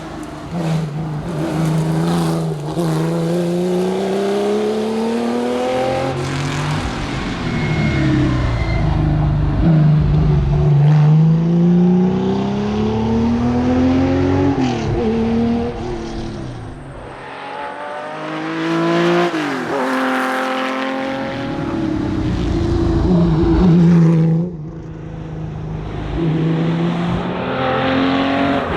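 Porsche 911 RSR's flat-six engine driven hard, revving up through the gears with the pitch climbing and dropping back at each shift. Twice the engine lifts off and drops sharply in pitch, with quick rev blips on the downshifts, then pulls hard again.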